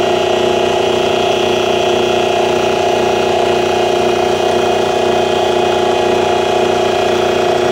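Mini milling machine running, its motor and spindle giving a steady hum with a constant whine on top, as the cutter takes a light final pass on a small T-slot nut held in the vise.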